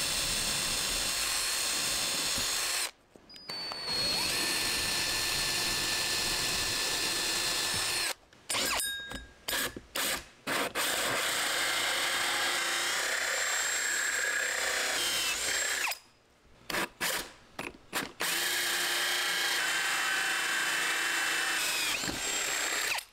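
Cordless drill boring into a solid core door, first with a twist bit for the pilot hole and then with a hole saw cutting a vent hole through. It runs in long stretches with a few short stops and several quick stop-start trigger bursts in between.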